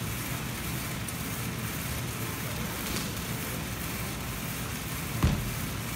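Steady gym room noise, then about five seconds in a single dull thud: an athlete dropping from gymnastic rings and landing on the rubber floor.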